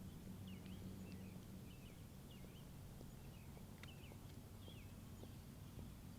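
Faint bird chirping, a string of short twittering calls, over a low steady hum.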